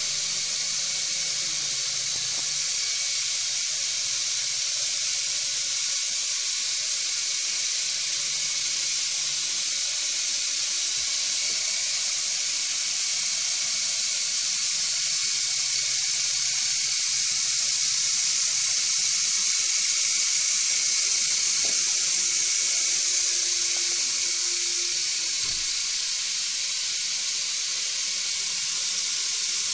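Lego Technic Aerocar model's electric motors and rotors running steadily after being switched on: a continuous airy, hissing whir that swells slightly about two-thirds of the way through.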